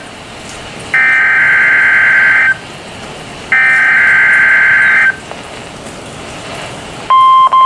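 NOAA Weather Radio EAS alert: two screechy bursts of SAME digital header data, each about a second and a half long, with hiss between them. These encode the special marine warning for alert receivers. About seven seconds in, the steady 1050 Hz warning alarm tone starts.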